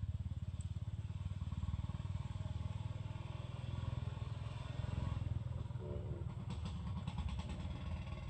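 A small engine running steadily with a rapid low pulsing, and a few light clicks about seven seconds in.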